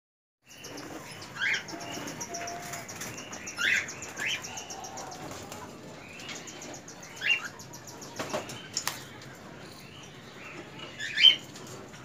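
Cockatiels calling: a handful of short, sharp rising chirps, the loudest near the end, over continuous softer chatter and quick ticking from the flock.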